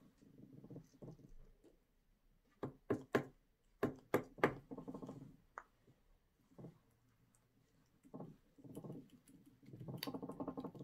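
Light knocks and taps of paint pots and paintbrushes against a tabletop, with a quick run of sharp taps about three to four and a half seconds in.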